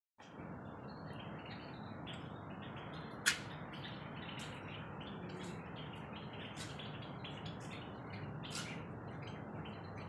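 Many small birds chirping continuously, short calls several a second from a busy flock, over a steady low background noise. One sharp, louder sound stands out about three seconds in.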